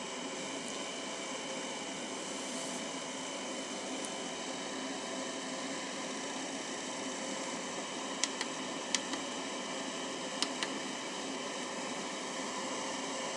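Steady fan-like whir and hiss with faint steady hum tones. A few short, sharp clicks come in quick pairs between about eight and eleven seconds in.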